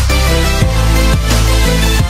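Background electronic music with a deep bass beat about twice a second.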